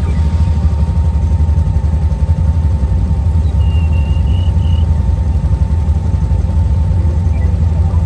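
ATV running, heard as a steady low rumble.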